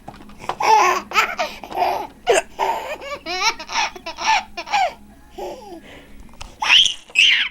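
A baby laughing in a run of short, repeated bursts, ending in two loud, high-pitched laughs near the end.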